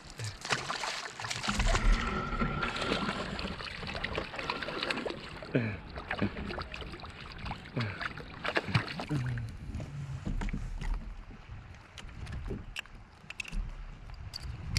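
Repeated small knocks and clicks of gear being handled on a kayak, over a steady rush of water and wind noise.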